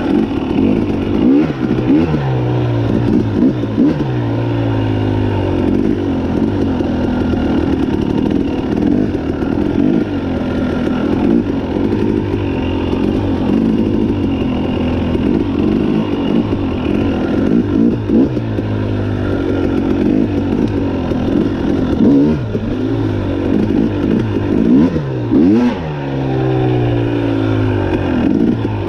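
Dirt bike engine being ridden hard, its pitch climbing and dropping again and again as the throttle is worked and the gears change.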